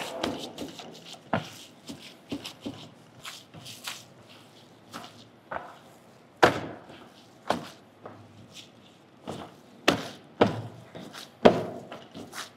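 Minced veal burger mix being kneaded by gloved hands and slapped down into a metal tray: irregular soft knocks, with a few louder slams about six and a half seconds in and in the last three seconds.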